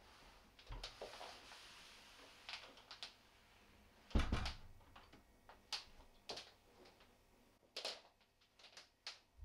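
Apartment front door being pushed shut by its lever handle: light handle and latch clicks, and one heavier thump about four seconds in as the door meets the frame, followed by scattered soft clicks.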